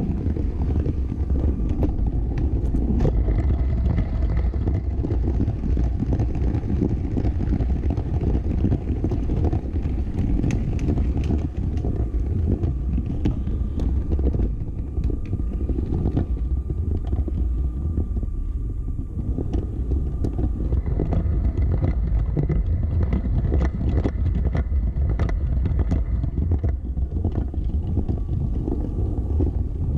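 Motorized Lego City toy train running: a steady low rumble with a faint motor whine and frequent small clicks.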